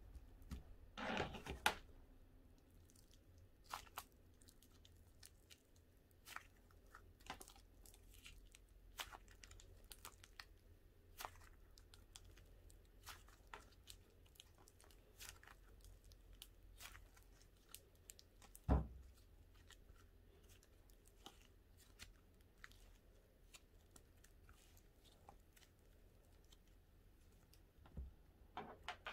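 Butter-style slime being pulled and squished by hand: faint, scattered small pops and crackles, with a louder thump about two-thirds of the way through. The slime tears and breaks apart rather than stretching.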